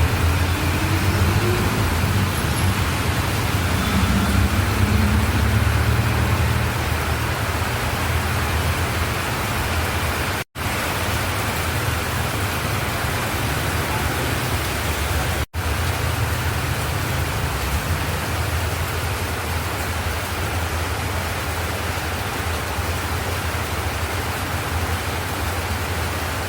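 Steady road and engine noise of a moving car, a rushing hiss over a low rumble, cutting out for an instant twice.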